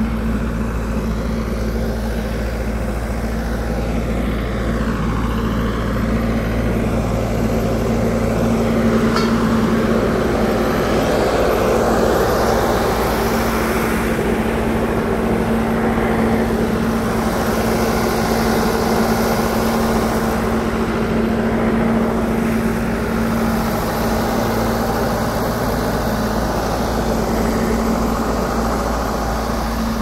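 Road traffic with a steady engine hum underneath, an unbroken low drone with the wash of passing vehicles swelling and fading over it.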